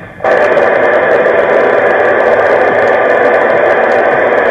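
27 MHz CB radio on FM with its squelch open, hissing with steady static through its speaker. The hiss cuts in suddenly about a quarter second in, as the transmit key is released.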